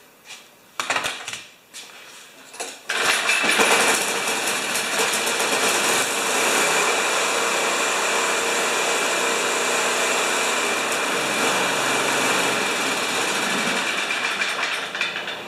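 A Craftsman snowblower's engine, started on choke with its newly replaced recoil starter, catches suddenly about three seconds in and then runs steadily at a fast speed, easing off slightly near the end.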